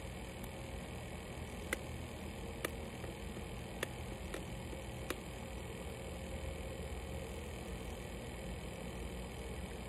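A cardboard phone box being handled and slid open, giving about five sharp clicks roughly a second apart in the first half, over a steady low hum.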